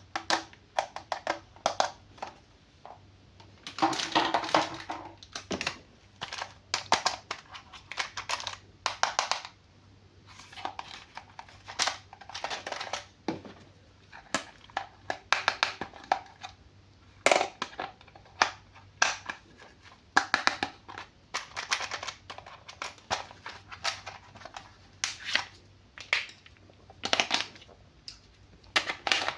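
Toy packaging being handled and opened by hand: irregular short bursts of rustling plastic and cardboard, on and off throughout.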